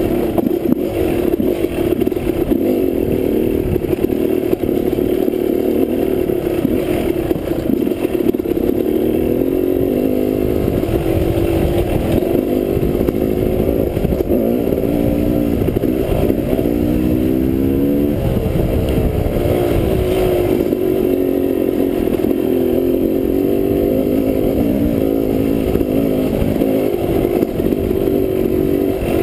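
Dirt bike engine running under way on a rough trail, its note rising and falling with the throttle, with a few quick revs up and down a little past halfway through.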